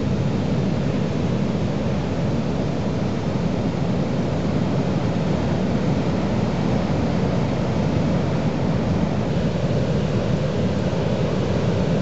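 Heavy surf from a strong swell breaking and churning along the shore: a steady, deep wash of noise with no breaks.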